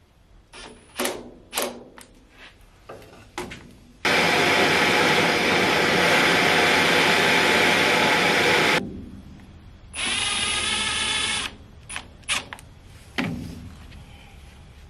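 A handheld gas torch hisses steadily for about five seconds, heating stubborn screws on a jointer table to free them. After a short pause, a cordless impact driver whirs for about a second and a half on the screws. Tool-handling clicks and knocks come before and after.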